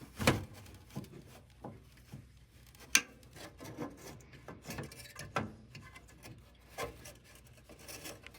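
New furnace draft inducer fan and gasket being worked into place against the furnace housing: scattered knocks and clicks with rubbing and scraping between them. The sharpest knocks come just after the start and about three seconds in.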